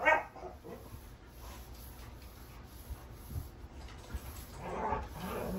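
A dog barks sharply right at the start, then makes further dog sounds a second before the end.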